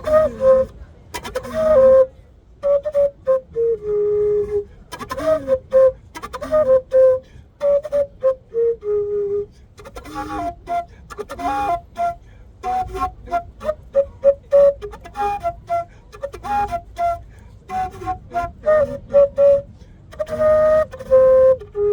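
A quenacho, the large Andean cane flute, playing a happy little tune of short notes in quick phrases, with a few longer held notes.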